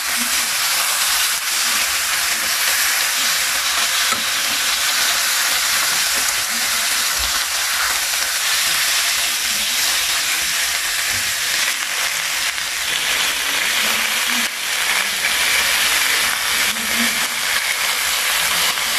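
Salmon steaks and heads pan-frying in hot oil with onions and ginger: a steady sizzle, with occasional light knocks and scrapes of metal tongs turning the pieces in the pan.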